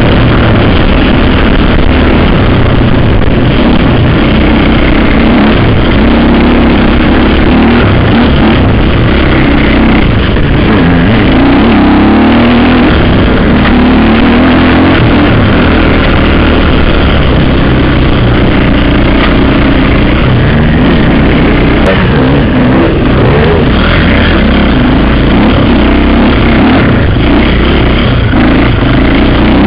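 Dirt bike engine heard loud from a helmet-mounted camera, revving up and down over and over as the throttle is worked on a trail ride.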